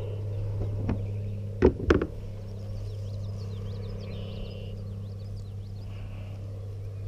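A steady low mechanical hum, like an engine or motor running. Two sharp knocks come about two seconds in, and faint high bird chirps sound over it.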